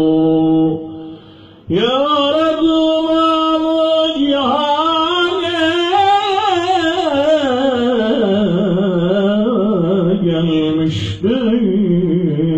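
A man chanting a mevlid solo, unaccompanied, in long melismatic phrases with wavering ornaments. He pauses for breath about a second in, then sings one long phrase, with a brief break near the end before the next phrase begins.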